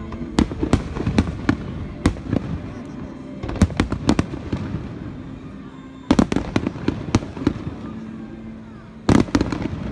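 Aerial fireworks bursting: rapid volleys of sharp bangs in four clusters a few seconds apart, each a quick run of several cracks, over background music.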